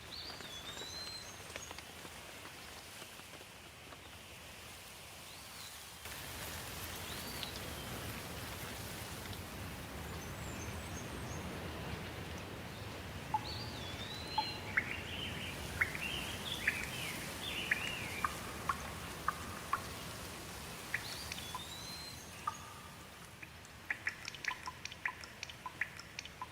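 Steady rain, heavier from about six seconds in, with birds calling over it: a looping whistled call repeated several times and a run of quick chirps in the middle. Sharp drips come near the end.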